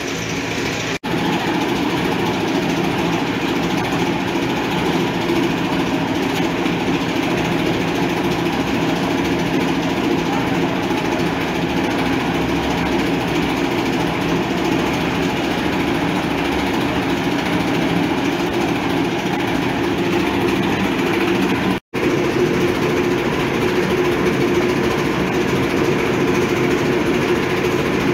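Motor-driven molino grinding mill running steadily as it grinds chiles into mole paste, with two brief cut-outs, one about a second in and one about three-quarters of the way through.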